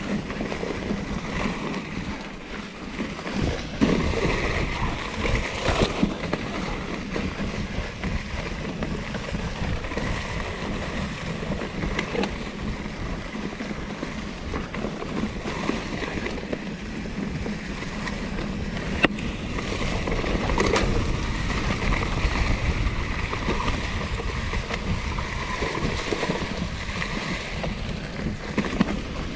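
Riding noise from a 2016 Norco Torrent plus-tyred hardtail mountain bike rolling down a trail: a steady low rumble of wind on the microphone and tyres on dirt, with the bike rattling and an occasional sharp knock over bumps.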